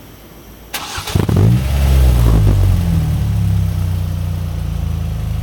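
Ford Fiesta ST with a Piper cat-back exhaust starting up: a brief crank of the starter, the engine catches and flares up in revs on start-up, then settles into a steady idle.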